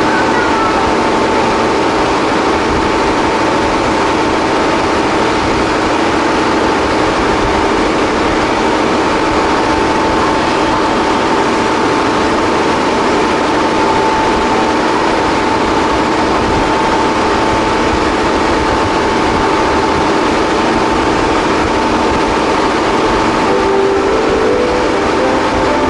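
Train running at steady speed: a continuous rumble with a steady whine.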